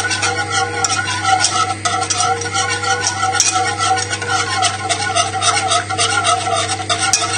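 Wire whisk beating butter into a reduced red wine sauce in a saucepan, a fast, continuous run of strokes as the butter is emulsified in. A steady low hum runs underneath.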